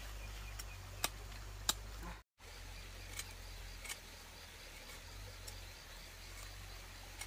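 A few sharp clicks and taps, spread out, over a faint steady background with a soft, rapidly pulsing high chirp; the sound cuts out completely for a moment about two seconds in.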